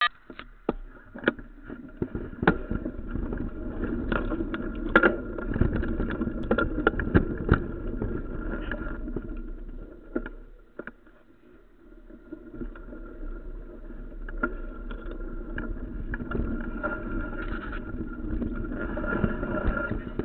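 Mountain bike ridden over a rough dirt singletrack and heard from the bike itself: the bike rattles and clatters over the bumps, with many sharp knocks and a steady rumble of tyre and trail noise. It goes briefly quieter a little past the middle, then picks up again.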